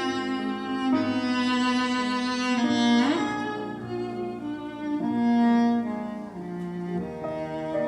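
Recorded classical string music, with a bowed cello to the fore, played back through an old McIntosh hi-fi system. Held notes change about once a second, with a short rising slide a little before halfway.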